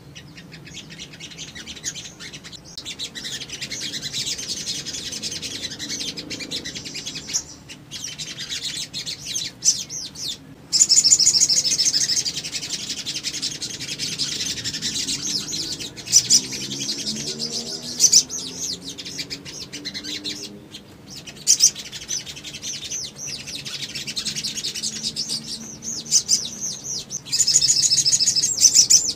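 Olive-backed sunbirds singing: rapid, high, chattering trills and chirps in repeated bursts, with the loudest long trills a third of the way in and near the end.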